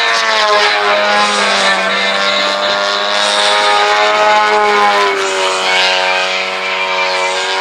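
Radio-controlled aerobatic airplane's engine running in flight, its pitch slowly rising and falling as the plane manoeuvres, with a steady low hum underneath.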